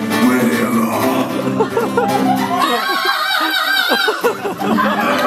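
A man singing to a strummed acoustic guitar. About two and a half seconds in, the guitar drops out and he holds a high note with a wide, wavering vibrato for about a second and a half, then the strumming and singing resume.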